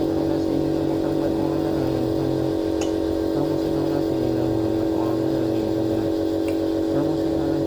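Compressor nebulizer running with a steady buzzing hum at one constant pitch.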